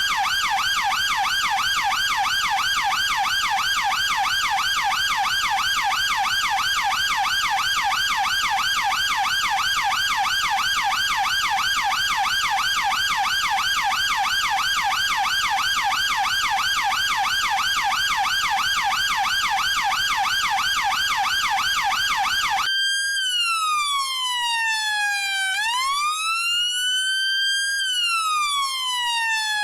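Chinese police car's electronic siren on a fast yelp, the pitch warbling up and down several times a second over a faint hiss. About 23 seconds in it switches abruptly to a slow wail that sweeps down, up and down again over a few seconds.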